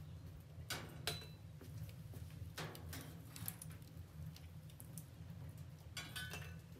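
Metal fire tongs clinking as hot coals are lifted from a wood stove and set on top of a brass samovar: a few sharp clicks and knocks, then a cluster of ringing metallic clinks near the end, over a low steady rumble.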